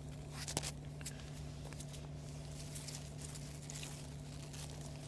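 Faint rustling and small crackles of frosted winter-cereal leaves and a jacket sleeve brushing close to the microphone, with a short cluster of louder ticks about half a second in, over a steady low hum.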